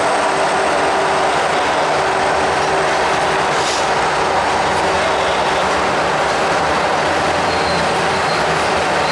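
Coal hopper cars of a freight train rolling past close by: a steady, loud noise of steel wheels running on the rails.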